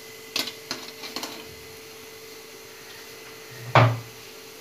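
Metal idli stand knocking against the steamer pot as it is lowered into the hot water: a few light clinks, then one heavier clunk near the end.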